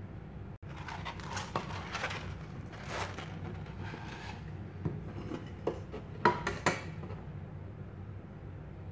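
Rustling and sliding of a sheet of abrasive sanding-belt paper being handled, then a few sharp metallic clicks about six seconds in as a steel ruler is set down on it, over a low steady hum.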